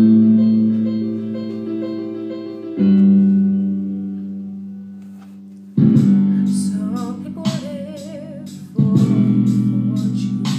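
Slow piano chords, struck about every three seconds and fading between strikes, with a woman's voice singing with vibrato over them about two-thirds of the way through.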